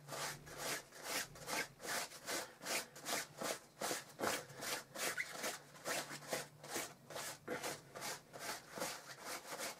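A block of paraffin-and-beeswax rubbed quickly back and forth over a jacket's fabric seams, about four scraping strokes a second, working wax into the seams to waterproof them.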